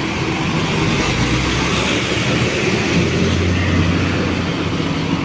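A large bus's diesel engine running as the bus drives slowly past and away, its low drone swelling in the middle and easing off near the end.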